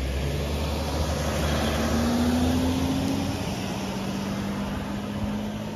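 A large vehicle's engine running steadily, a low hum with a tone that rises slightly about two seconds in and then holds.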